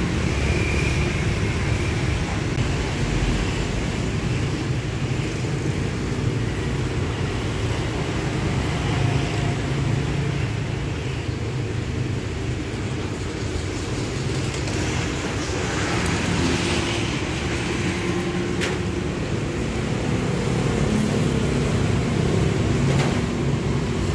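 Steady street background noise, a dense low rumble of passing traffic, with two sharp ticks late on.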